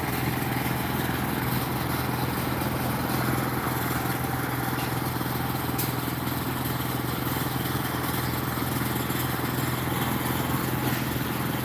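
An engine running steadily at a constant pitch.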